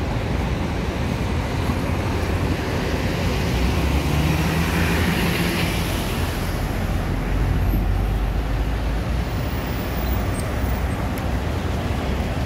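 Street traffic: cars, a van and a minibus driving past with a steady engine and tyre noise. One vehicle swells and fades as it passes about four to six seconds in.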